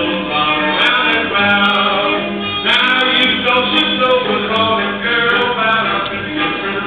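Square dance music with a man singing over the tune.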